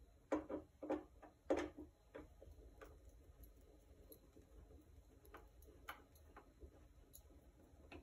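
Light clicks and taps of a small handheld tool against the rear panel of an Acoustic B25C bass combo amp: three sharper clicks within the first two seconds, then a few fainter ticks.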